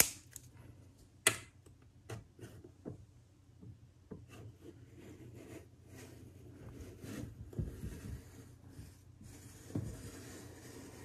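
Two sharp plastic clicks as a new cutting wheel is snapped onto the iMac screen-adhesive cutting tool. Then soft, uneven scraping as the thin plastic wheel is run along the edge of the glass display, slicing through the adhesive that holds the screen on.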